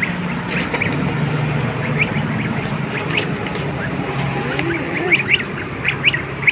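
Domestic goose goslings peeping: short, high, rising peeps, scattered at first and coming thicker in the last second or two, over a steady low hum.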